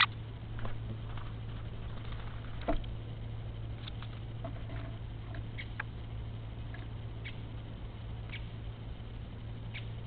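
Steady low electrical hum from a nest webcam's microphone, with scattered short sharp ticks and two louder knocks, one at the start and one nearly three seconds in, from a great spotted woodpecker moving about on the sticks of an osprey nest.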